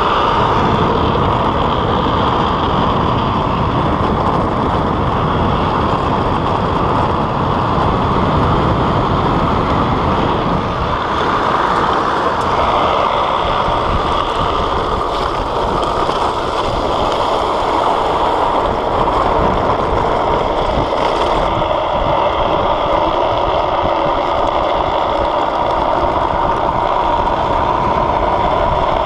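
Steady rush of wind on the microphone mixed with the rumble of a drift trike's wheels rolling on asphalt at downhill speed.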